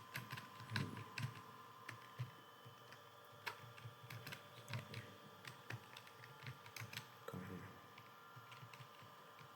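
Computer keyboard typing: irregular keystroke clicks with pauses between short runs, the pace of someone typing words as they are dictated.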